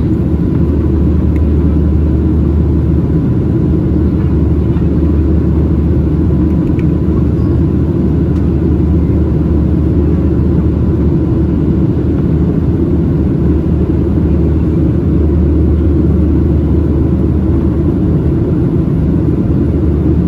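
Cabin noise of a Boeing 737-700 in the climb: its CFM56-7B engines and the airflow make a loud, steady, deep rumble, with a faint steady tone above it.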